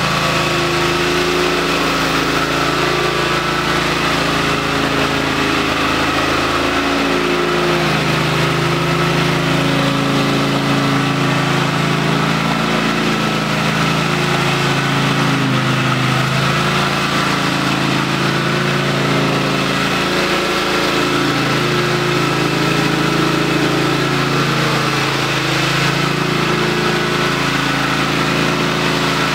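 Propane-powered WerkMaster Titan XT concrete floor grinder running, its 21 hp Kawasaki engine driving diamond (PCD) tooling that grinds cut-back carpet glue off the concrete. The engine note is steady and loud, wavering slightly in pitch.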